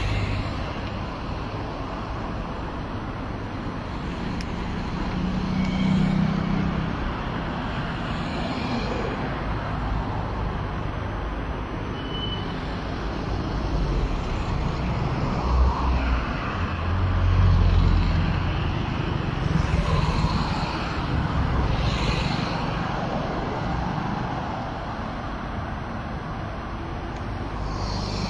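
Street traffic: a steady hum of road noise with several vehicles passing, their engine rumble swelling and fading, loudest a little past the middle.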